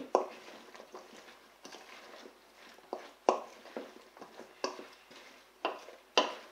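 Wooden spoon stirring chunks of cooked vegetables in a metal mixing bowl, with about ten irregular knocks and clacks of the spoon and vegetables against the bowl. The loudest knocks come about three seconds in and near the end.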